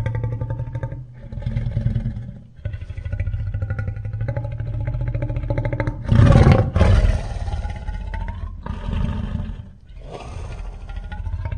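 Layered monster-roar sound effect built from lion, tiger and King Kong roars and wolf howls: a run of long, rattling growl-roars with short breaks between them, the loudest about six seconds in.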